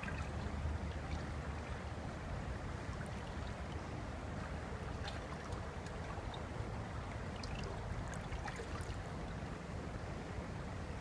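Steady rush of water from a small river waterfall, with scattered faint trickling ticks over it.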